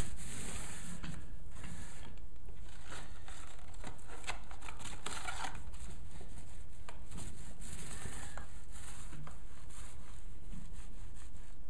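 Small paint roller rolling paint onto a flat backdrop panel: faint sticky crackling in a few short strokes, over a steady low hum.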